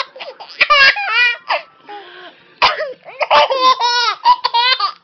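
A person coughs and a baby answers with a run of high-pitched giggling, twice over, the second run of giggles longer.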